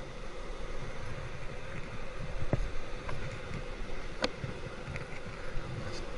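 Surf kayak hull scraping and rumbling as it slides over wet sand, pushed along by hand, with two sharp knocks, the second about four seconds in being the louder.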